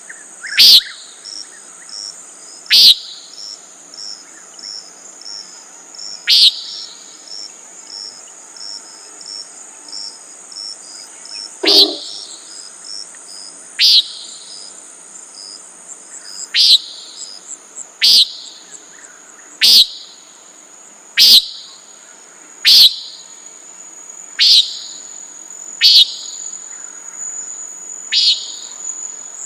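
Common nighthawk giving its short, nasal peent call about a dozen times. The calls are spaced a few seconds apart at first, then come every one and a half to two seconds. Under them runs a steady high trilling of crickets.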